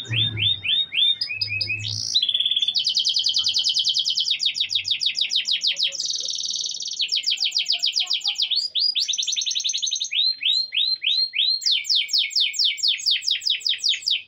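Domestic canary singing a long, loud song of rapid trills, each run a fast string of repeated notes, shifting from one trill to another every second or two.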